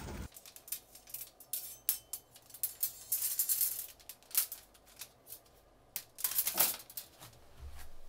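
A bundle of thin coated-metal suit hangers clinking and rattling against each other as they are handled, in a string of short irregular clicks and rustles, then laid down on a stone countertop.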